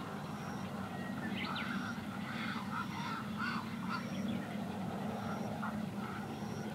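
Harsh, quacking squawks of herons at a nesting colony, a quick run of calls about a second in that thins out after the middle, over a steady low hum.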